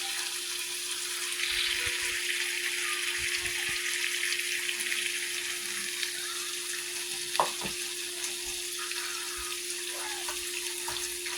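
Ribeye steak frying in a pan, a steady sizzle with a low hum underneath. A single short clink sounds about seven seconds in.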